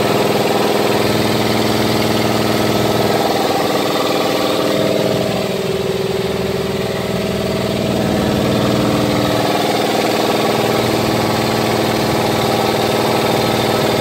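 Electric multi-cylinder air compressor running steadily, its 230 V single-phase motor and pump making a loud, even mechanical drone. It is working normally on power from a 240 V dryer outlet. The sound dips slightly for a couple of seconds around the middle.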